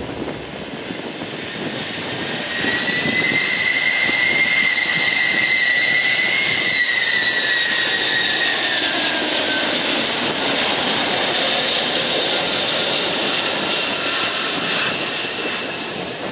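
McDonnell Douglas MD-11 trijet on final approach: its three jet engines run at approach power with a steady rush and a high fan whine. The whine slides down in pitch and fades about ten seconds in, and the noise eases slightly near the end.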